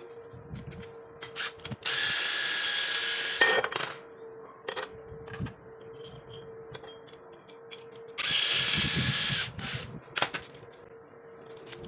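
A small motorised tool runs in two bursts of about a second and a half each, some six seconds apart, with clicks and knocks between them. A faint steady hum runs underneath.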